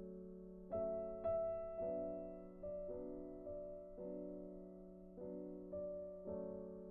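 Gentle background piano music: slow single notes and chords, each struck and left to fade, with the loudest notes about a second in.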